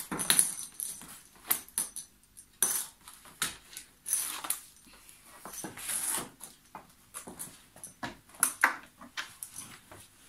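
A TIG welding torch's cable and hose being handled and uncoiled: irregular rustling, clicks and knocks as the rubber-sheathed lead and torch head are moved about and brought to the welder's front panel.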